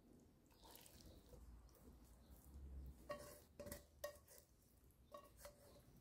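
Faint clinks and taps of a serving spoon against a metal springform cake pan as vegetable filling is spooned onto the batter, about five of them in the second half, each with a short ring.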